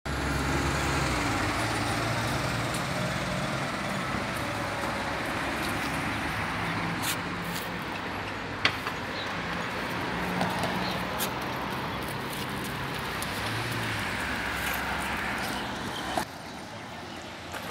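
Steady city road traffic, cars and buses passing on a multi-lane road with a low engine hum, broken by a few sharp clicks. The noise drops suddenly to a quieter level about sixteen seconds in.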